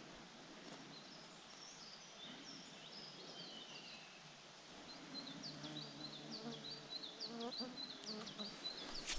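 Faint outdoor ambience: an insect buzzing, with small birds chirping. About halfway through, the chirps come in a quick run.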